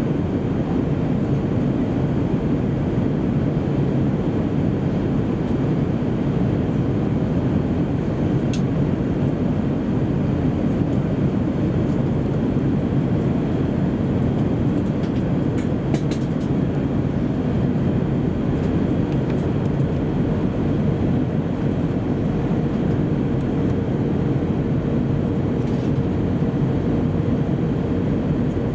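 Steady cabin noise inside an Airbus A319-131 airliner: an even rush of air and the drone of its IAE V2500 turbofan engines, with a faint steady hum running through it. A few faint ticks come about a third and two-thirds of the way in.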